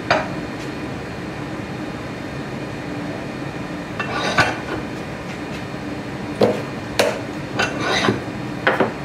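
Bench arbor press being worked by hand to press a rubber dust seal into a Classic Mini brake caliper through a small wooden block. It gives scattered metallic clicks and knocks: a cluster about four seconds in and several more in the last three seconds. A steady HVAC hum runs underneath.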